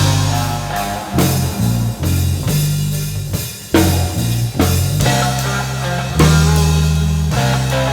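Rock band playing: drum kit with bass drum, electric guitar and a bass line moving between held notes, with a brief drop in the music about three and a half seconds in.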